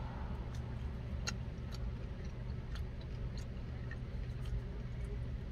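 Steady low hum inside a parked car with the windows down, with scattered sharp clicks every half second or so.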